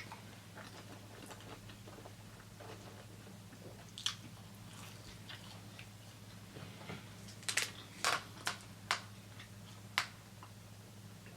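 Close-miked chewing of a cheesesteak sandwich: soft wet mouth sounds with sharp smacks and clicks, a quick run of them about two-thirds of the way through.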